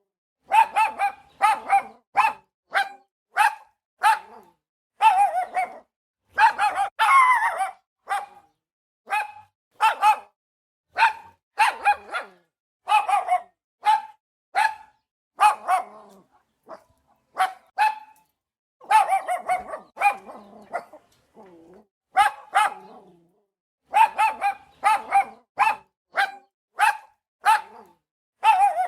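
A dog barking over and over in short barks, about one or two a second, with a few longer barks and brief pauses between runs.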